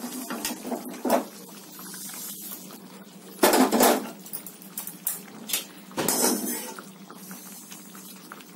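Cookware clatter: fried okra scraped out of a frying pan into a pan of simmering gravy, then a steel spoon stirring it in. A few short clanks and scrapes, the loudest about three and a half seconds in and again at six seconds.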